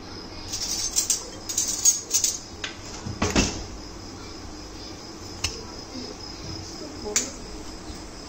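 Kitchen handling noises: a spoon and ceramic bowl of breadcrumbs, with a few short scrapes in the first couple of seconds, a louder knock about three seconds in, and two sharp clicks later. A faint steady high-pitched whine runs underneath.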